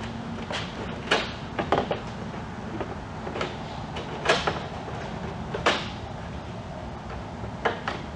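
Hard plastic clicks and knocks, about seven sharp ones spread out, as a 2003–2007 Chevy Silverado headlight assembly is handled and pushed into place, over a steady low background hum.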